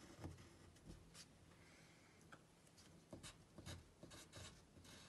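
Pencil writing numbers on paper: faint, short scratching strokes, coming in a quick cluster a little past halfway.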